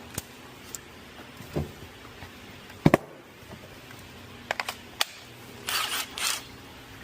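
Hand tools and metal parts being handled: scattered sharp clicks and knocks, a louder double click about three seconds in, and two short rasping bursts about six seconds in.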